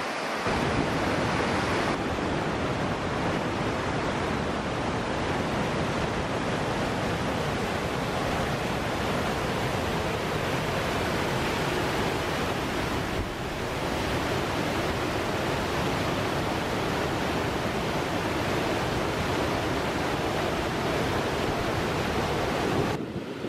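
White-water rapids and small falls rushing through a rocky river gorge: a steady, dense rush of water that dips briefly a little past halfway.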